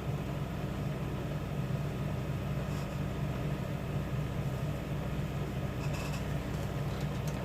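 Steady low background hum, with a couple of faint, brief scratchy sounds about three and six seconds in.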